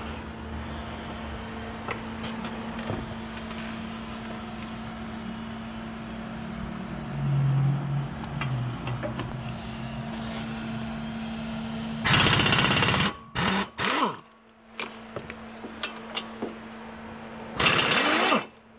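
Impact gun with a 17 mm socket hammering out the two retaining bolts of a brake caliper, in two bursts of about a second each, about five seconds apart. A steady low hum runs under the first part.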